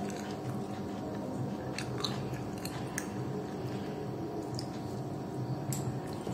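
A person eating soft khichuri by hand: fingers mixing the rice and lentils on the plate, then chewing with small wet clicks and smacks. A steady low hum runs underneath.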